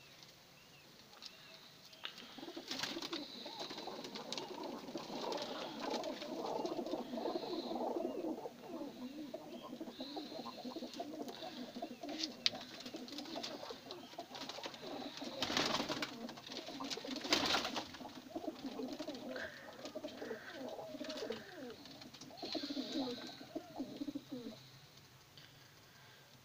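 A loft full of domestic pigeons cooing, many birds overlapping in a continuous low, warbling chorus that starts about two seconds in and dies away shortly before the end. Two brief, loud, noisy bursts come just past the middle.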